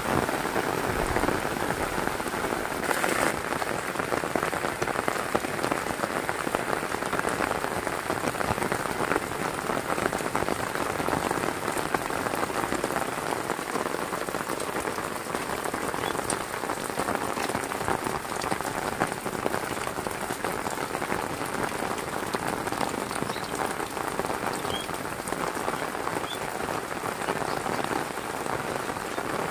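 Heavy rain falling steadily, a dense hiss of countless drops, briefly brighter about three seconds in.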